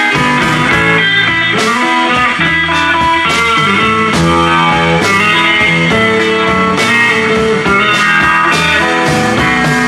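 Live blues trio playing an instrumental passage between sung lines: guitar over double bass and drums, with regular drum strokes.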